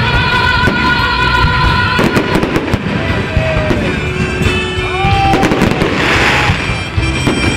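Festive fireworks: rapid bangs and pops, with a burst of crackling about six seconds in, over music with held notes.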